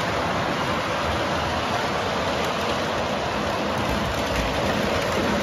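Model trains running on the layout's track, making a steady rolling noise of wheels on rails with a motor hum underneath.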